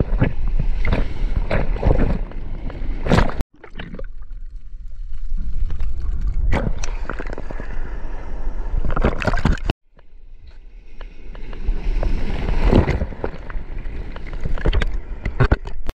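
Seawater sloshing and splashing against a water-level camera housing in the surf, with waves breaking and a deep rumble of water and wind on the microphone. The sound cuts out abruptly twice and comes back.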